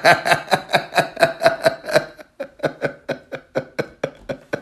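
A long, rapid sputtering fart: an even train of quick pops, about five a second, that grows gradually weaker.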